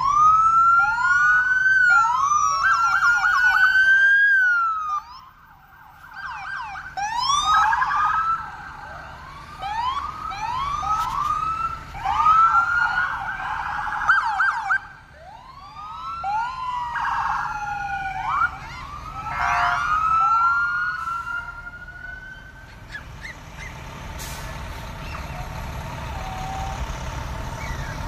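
Massed sirens of police cars, fire trucks and ambulances sounding together, many rising and falling wails overlapping. They stop about 23 seconds in, leaving a steady low rumble of vehicles.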